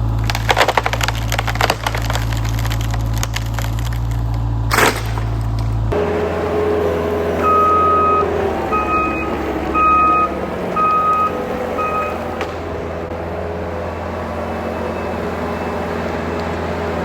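Heavy diesel earthmoving equipment running. In the first six seconds it comes with a low rumble and many sharp cracks and snaps. After that the engine runs steadily while a reversing alarm beeps five times, about once a second.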